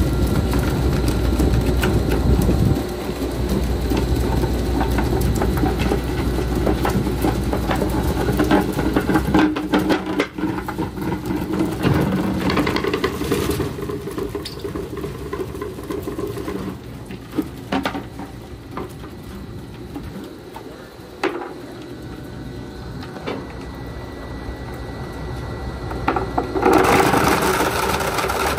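Weima WL4 single-shaft wood waste grinder running with a steady machine drone and scattered knocks. The drone drops in level about ten seconds in and rises sharply again near the end.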